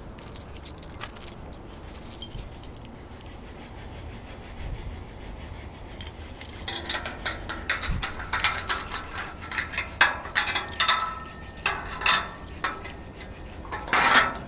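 Irregular sharp clicks and light rattling, as of small hard objects being handled, sparse at first and busy through the second half, over a faint low rumble.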